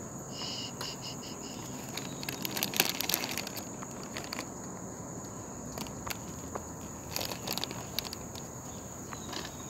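Insects chirring in a steady, high, continuous tone, with scattered sharp clicks, the loudest about three seconds in.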